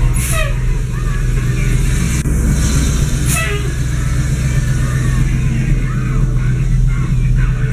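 1998 Ford F-series straight truck's engine idling steadily with a low hum. Two brief sharp noises cut in, about a third of a second in and again about three seconds in.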